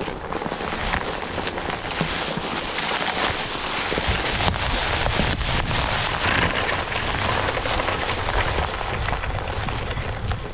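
Off-road wheelchair tyres rolling over a rough forest track, with a continuous crackling and crunching of grit and twigs over a low rumble, loudest in the middle.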